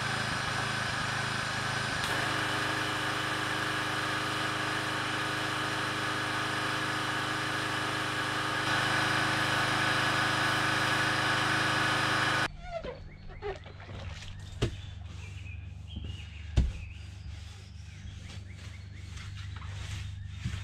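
Gasoline pressure washer running steadily, its small engine under the hiss of the spray, growing a little louder twice. About two-thirds of the way through it stops abruptly, leaving birds chirping faintly and a couple of sharp knocks.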